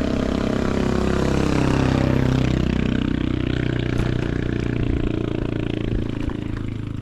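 A motor vehicle passing close by: its engine note swells to a peak about two seconds in, then slowly falls away, over a steady low rumble.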